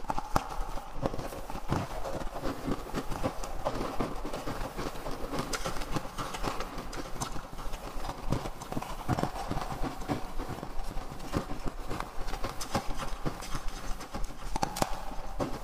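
Close-miked crunching and chewing of ice chunks coated in powder, a fast irregular run of sharp crunches.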